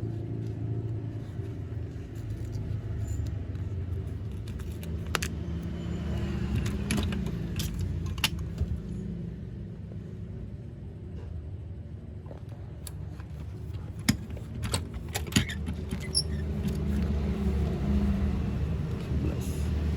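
Scattered light clicks and taps from handling a plastic toy plane and its stickers, over a steady low rumble.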